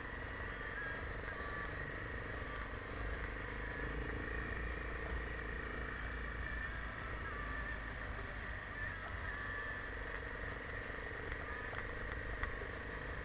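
Enduro motorcycle engine running at low speed as the bike rolls through snow, a steady low drone with a few faint ticks.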